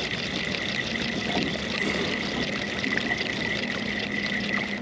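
Water splashing and trickling alongside a small boat, with a steady high whine and a low hum underneath.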